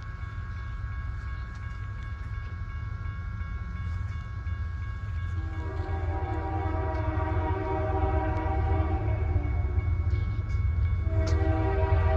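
Diesel locomotive air horn blowing a long chord of several tones at once, starting about five and a half seconds in, breaking off briefly near the end and then sounding again. Underneath, the locomotive's engine rumble grows steadily louder as the train approaches, with a high steady ringing.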